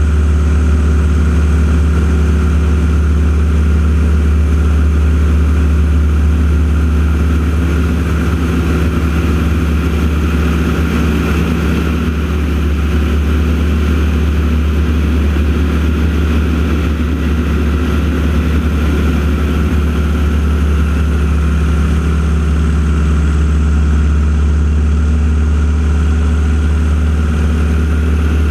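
Piston propeller aircraft engines droning steadily and loudly, with a heavy low hum and hardly any change in level.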